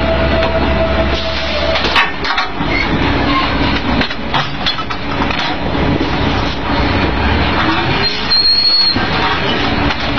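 Drilling rig floor machinery running loudly, with frequent metal clanks and knocks from the drill pipe and rig tools at the rotary table.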